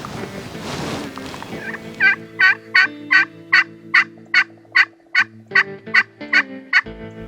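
A turkey call worked by a hunter: a series of about thirteen hen yelps, roughly three a second, each note dropping in pitch, calling to draw distant gobblers in. Soft background music with sustained low notes plays underneath.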